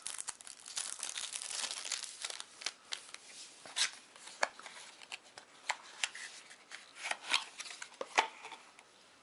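A card-game starter deck's cardboard box and paper packaging being opened and handled: crinkling and tearing for the first couple of seconds, then scattered sharp clicks and taps.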